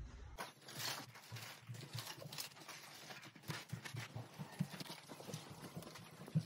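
Faint, irregular taps and knocks of a handheld phone being moved about, with a sharper knock near the end.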